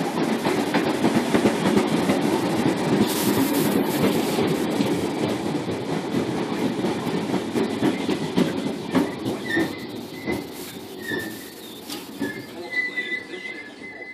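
Class 313 electric multiple unit running into the station and slowing: a rumble with wheels clicking over rail joints, fading as it slows. From about halfway through, high brake squeals join in as it draws to a stop.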